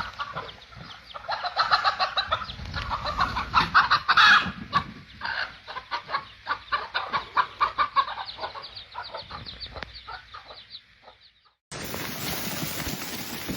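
Several chickens clucking and squawking in quick, overlapping calls that die away after about eleven seconds. Near the end it cuts abruptly to a steady rush of wind on the microphone.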